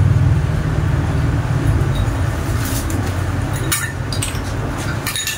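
A steady low rumble starts abruptly and runs on, with a couple of light clinks near the end as a glass and dishes are set down on the floor.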